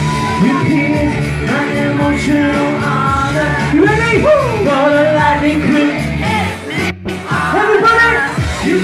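Live pop music played loud, with singing voices gliding over a steady backing track. The sound drops out for a split second about seven seconds in.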